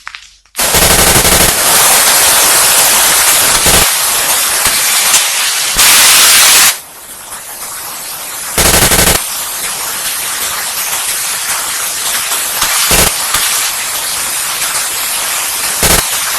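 Loud, harsh static-like noise with a rapid crackle, louder in short bursts about half a second in, around six seconds and near nine seconds.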